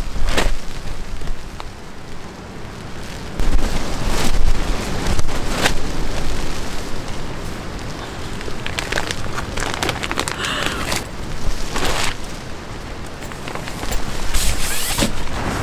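Strong wind buffeting a camping tent in rain: a heavy low rumble of gusts that rises and falls, with irregular sharp flaps and crackles of the tent fabric.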